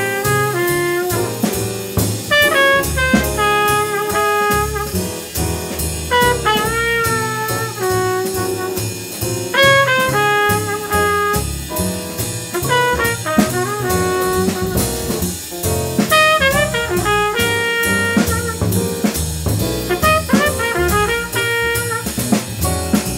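Jazz sextet playing live: a trumpet plays a single melodic line of quick runs and held notes over bass, piano and a drum kit keeping time on the cymbals.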